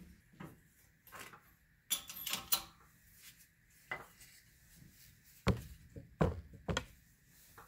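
Irregular metal clinks and knocks of pieces and tools being handled on a shop press during a bushing installation, with the sharpest knocks about five and a half to seven seconds in.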